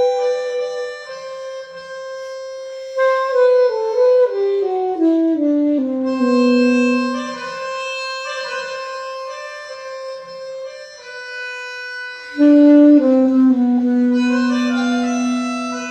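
Alto saxophone and pianica (melodica) music: a held reed tone with a line that steps downward to a long low note, then a second loud low note comes in near the end.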